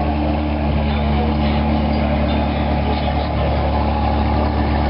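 Vehicle engine idling steadily, an even low hum with no revving.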